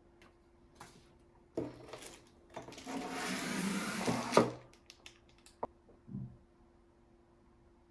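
Packaging and parts being handled: a few light clicks, then about two seconds of scraping and rustling that ends in a sharp knock, with more small clicks after. A faint steady hum runs underneath.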